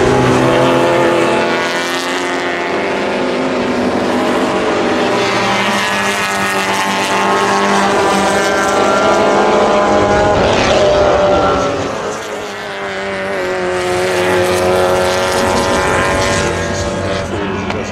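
A pack of Alfa Romeo and Fiat saloon race cars passing at racing speed, several engines revving hard together, their pitch rising and falling as they go through the gears and sweep by. The loudest car goes past about ten seconds in.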